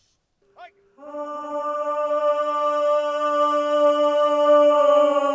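Music: one long sung note held at a steady pitch, slowly growing louder, entering about a second in, after a short high chirp.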